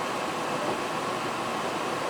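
KiHa 261-5000 series diesel express railcar running on the line, a steady rushing noise with a constant hum underneath.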